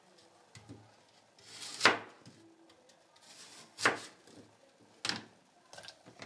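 Kitchen knife cutting an apple on a cutting board: a short rasp of the blade through the fruit, then sharp knocks of the blade on the board, three main ones a second or two apart, with a few fainter taps between.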